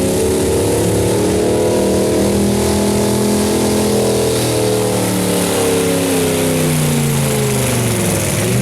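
Pulling truck's engine running hard at high revs under load, its pitch climbing slightly and then sagging steadily through the second half as the engine is pulled down.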